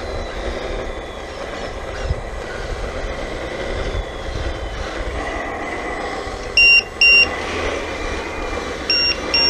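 Steady whine of a 1/14-scale RC hydraulic loader's electric motors and hydraulic pump as it drives and works on dirt. Two pairs of short, loud, high beeps come about seven and nine seconds in.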